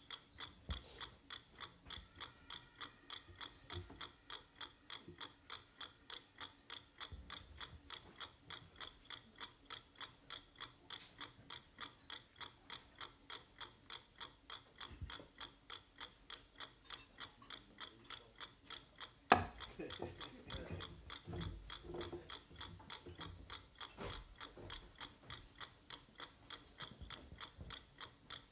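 Mechanical chess clock ticking quietly and steadily, with one sharp knock about two-thirds of the way through.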